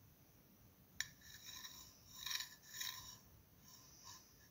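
Knife sawing diagonally through a bread sandwich on a plate: faint rasping strokes of the blade through the bread, with a light click about a second in.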